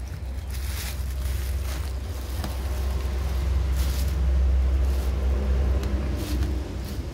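A low wind-like rumble swells to its loudest about four seconds in and eases off again, with scattered crinkles and clicks as hands work the plastic-wrapped base of a rechargeable table fan.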